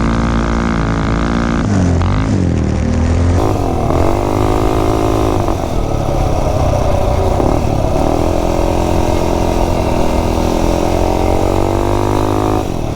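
Tillotson 263cc single-cylinder four-stroke minibike engine running at high revs, its pitch dipping sharply and recovering about four times before holding steady. The engine is cutting out at the top end, which the rider puts down to a dirty carburettor.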